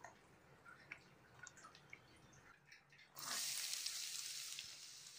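Faint scattered ticking of oil heating in a stainless steel kadai. About three seconds in, chopped shallots hit the hot oil and it breaks into a loud, steady sizzle.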